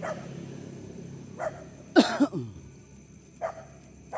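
Dog barking in short single barks, about four times, with the loudest bark just past halfway.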